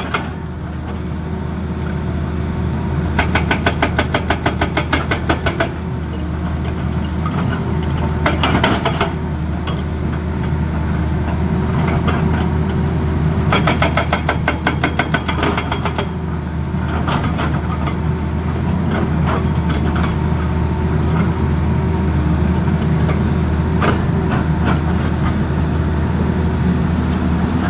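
Tata Hitachi excavator's diesel engine running steadily under load while its hydraulic rock breaker hammers the rock face in rapid bursts of blows, several times in the first half and more sparsely later.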